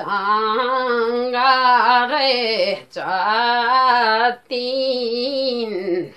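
A woman singing a Limbu palam unaccompanied: long, wavering melodic phrases with two short breaks for breath.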